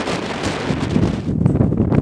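Wind buffeting the microphone, a loud rushing hiss. A little past a second in, the hiss drops away to a lower rumble with a few faint knocks.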